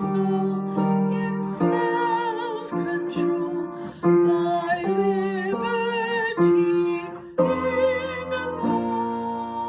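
Music: acoustic guitar accompanying a slow sung hymn, the voice holding long notes with vibrato.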